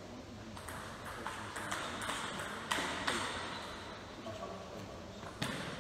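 Table tennis ball hits: irregular sharp clicks of a ball striking bats and tables, the sharpest about three seconds in and another near the end.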